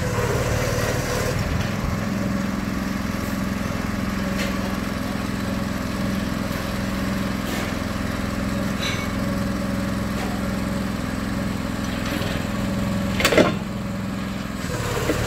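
Small diesel engine of a mini monkey hoist running steadily while the hoist winches up a loaded steel cart. A single sharp metallic clank about 13 seconds in.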